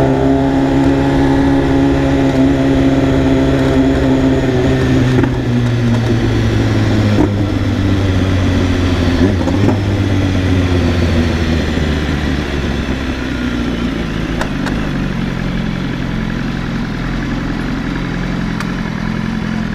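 BMW S1000RR inline-four engine running steadily, its pitch sinking slowly over several seconds and then settling lower.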